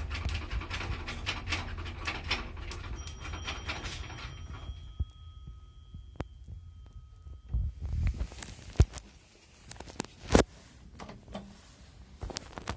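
1977 Zremb elevator car running in its shaft with a low rumble and dense rattling, going quiet about four and a half seconds in as it stops at the ground floor. Then a few separate clicks and clunks follow, the loudest about ten seconds in, as the car settles and its sliding doors open.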